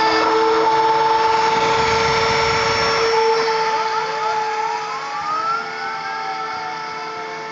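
Home-built CNC router running: its rotary-tool spindle whines at a steady pitch while the ball-tipped bit engraves grooves in wood, and the axis stepper motors whine in rising and falling pitch glides as the head changes speed and direction. The sound fades somewhat in the second half.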